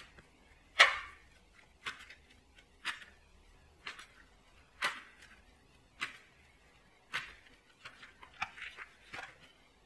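A deck of tarot cards being shuffled by hand, with a sharp slap of cards about once a second.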